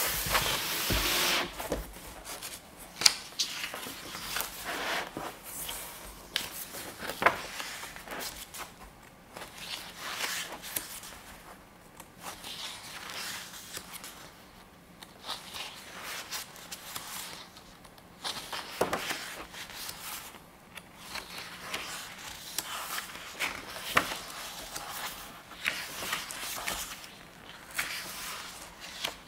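Paper being handled: a fold-out sheet of a softcover photobook folded shut with a louder rustle at the start, then pages turned by hand with irregular soft rustles, scrapes and light ticks of paper.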